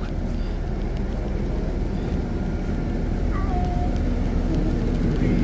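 Idling engine of a parked sleeper bus, a steady low rumble heard inside the cabin, with a brief faint voice about three seconds in.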